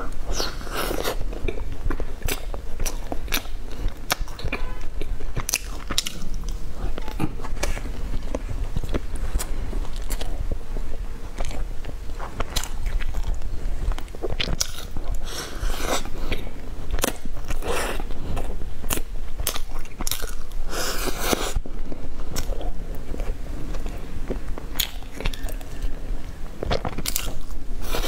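Close-miked mouth sounds of biting into and chewing soft buns dipped in chocolate sauce: many short, sharp clicks scattered irregularly as the food is bitten and chewed.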